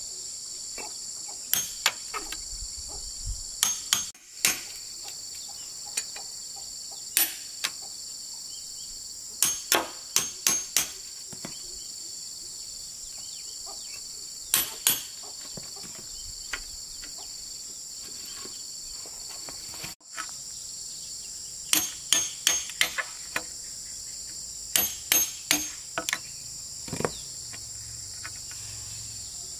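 A steady, high-pitched insect chorus, with sharp knocks in short quick clusters of two to four every few seconds, like hand tools striking wood.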